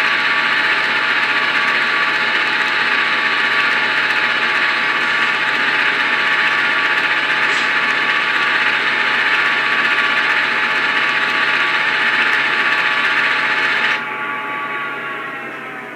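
Diesel locomotive engine sound from the sound decoder of an N-scale VIA Rail F40PH-2D model, played through its small onboard speaker: a steady idle that drops suddenly about two seconds before the end and winds down with falling pitch, like an engine shutdown.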